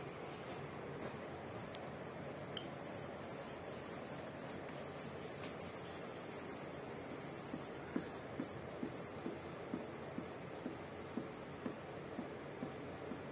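Faint scribbling of a dry-erase marker on a whiteboard. Over the second half it turns into a run of light taps, about two a second, as the marker strikes the board with each zigzag stroke.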